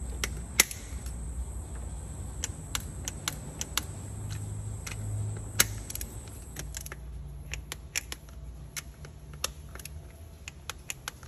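Torque wrench and socket on cylinder head bolts: irregular sharp metallic clicks and clinks as each bolt is checked on a second pass at 25 Nm.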